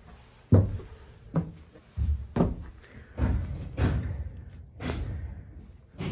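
Footsteps thudding on bare wooden floorboards, a heavy step about every half second to a second.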